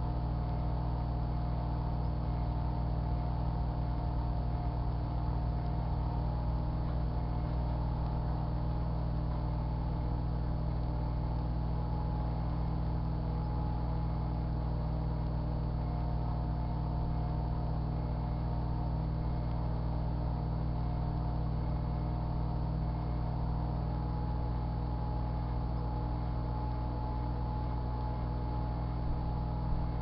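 Sharp Carousel microwave oven running: a steady, unchanging hum.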